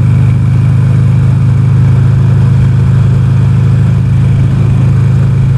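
Motorcycle engine and exhaust running steadily at a cruise, through a modified muffler with its baffles knocked out and two outlets instead of one.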